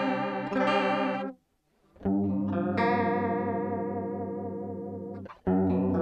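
Electric guitar chords played through a Twinote BBD Chorus pedal with depth, speed and blend all turned fully up, giving a strong wavering chorus. A ringing chord is cut off a little over a second in, a new chord is strummed about two seconds in and rings out, fading, and another is struck near the end.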